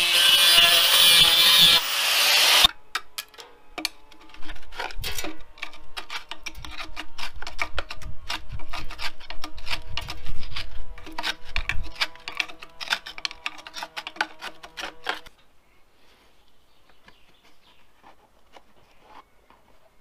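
Electric angle grinder grinding the steel axle casing of a Land Rover Series 3, cutting off abruptly about two and a half seconds in. Then a hand tool scrapes and taps irregularly against the metal for about twelve seconds.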